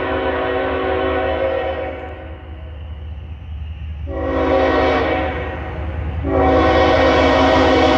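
Freight diesel locomotive's multi-note air horn sounding three long blasts, the first fading out about two seconds in, the next starting about four seconds in and the last about six seconds in. A steady low rumble of the approaching train runs underneath.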